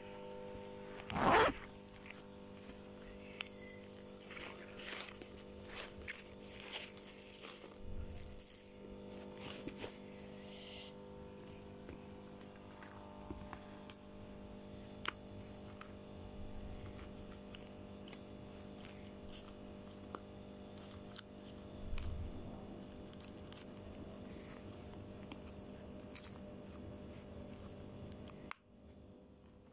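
A zipper pulled quickly once about a second in. Then scattered scraping, rustling and small clicks as small pouches and items are handled, over a steady low hum.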